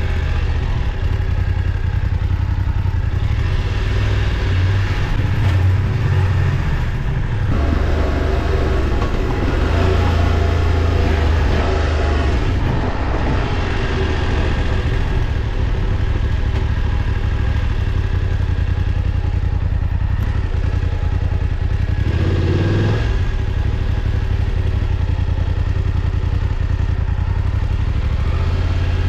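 Motorcycle engine running steadily while riding, with road and wind noise; the engine revs up briefly about 22 seconds in.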